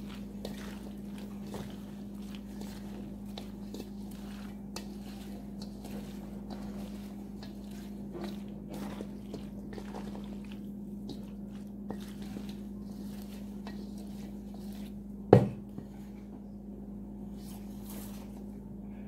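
Silicone spatula stirring and folding a creamy, mayonnaise-dressed macaroni salad in a large stainless steel bowl: soft squelching with light scrapes and taps against the metal, over a steady low hum. About fifteen seconds in, one sharp knock, the loudest sound.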